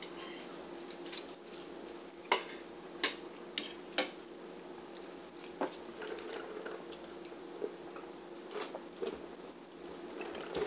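Fork clinking and scraping against a plate during a meal: scattered sharp clicks, about eight of them, the loudest about two to four seconds in, over a steady faint hum.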